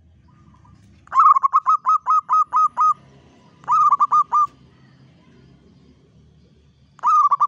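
Local Javanese zebra dove (perkutut) singing: three phrases of rapid, clipped cooing notes, the first about nine notes long, the second shorter, the third starting near the end.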